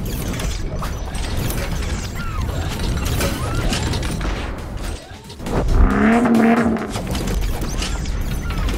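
Produced intro sound effects: a steady run of mechanical clicking and ratcheting, with a deep hit about five and a half seconds in followed by a short pitched swell.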